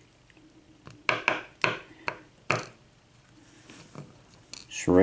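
About half a dozen small, sharp metal clicks and taps: lock pins being tipped out of a Schlage cylinder plug and handled.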